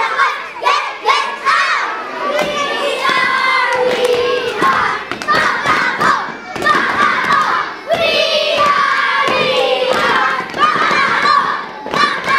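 A group of young boys shouting a scout cheer in unison, chanting with hand claps and stamping feet. Quick sharp claps come thickest in the first couple of seconds, then longer shouted, chanted lines.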